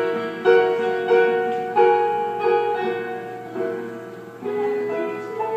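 Slow piano music: single notes and chords struck about every half second to a second, each left to ring and fade.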